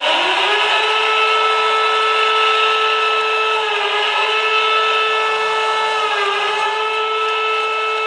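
Amur Khabarovsk's arena goal horn: one long, steady horn blast with a rich stack of overtones, dipping slightly in pitch twice.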